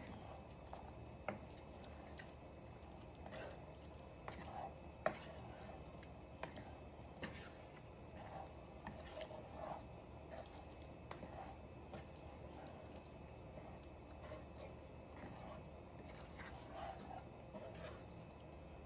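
Faint stirring of chicken pieces in a thick gravy with a wooden spatula in a nonstick frying pan, with scattered taps and scrapes of the spatula against the pan, the loudest about five seconds in.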